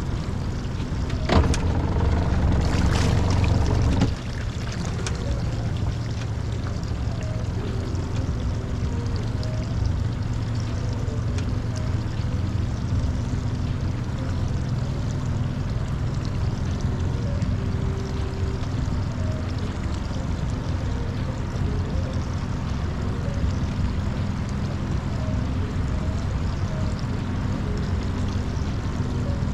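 A boat motor running steadily with a low hum. From about one to four seconds in, a louder rush of noise covers it, then cuts off sharply.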